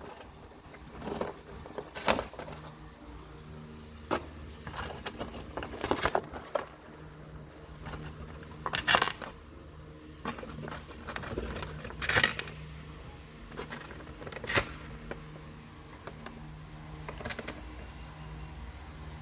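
A flat metal file pokes and scrapes between the heads of a large, tightly packed bundle of wooden matches, making short irregular clicks and rattles every second or two. A steady low hum runs underneath.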